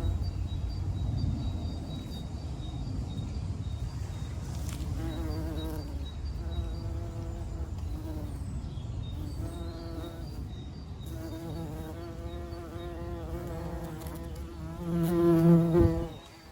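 A flying insect buzzing close by: the buzz comes and goes several times from about five seconds in, wavering in pitch, and is loudest just before the end.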